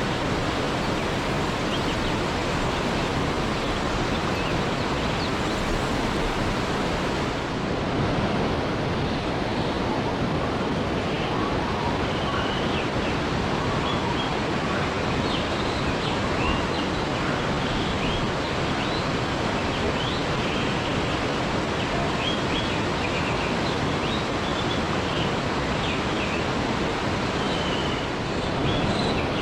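Waterfall: a steady, even rush of falling water. Faint, short, high chirps sound over it from about eight seconds in.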